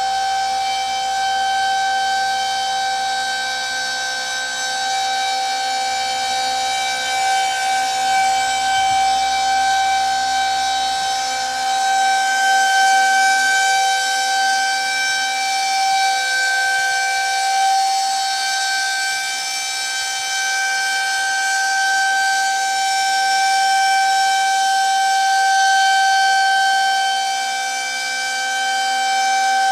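Federal Signal 2001-130 rotating outdoor warning siren sounding its alert signal: one steady, unbroken tone whose loudness swells and eases slowly.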